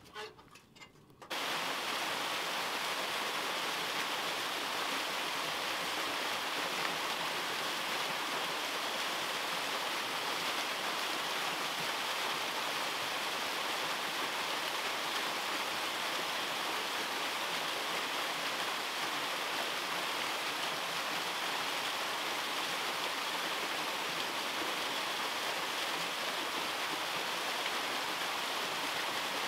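Small waterfall splashing into a shallow rocky pool: a steady rush of falling water that starts abruptly about a second in.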